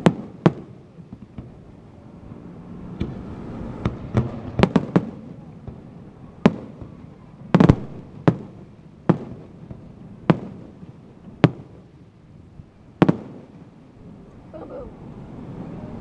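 Aerial firework shells bursting: about fifteen sharp booms at uneven intervals, the loudest close-together cluster about halfway through.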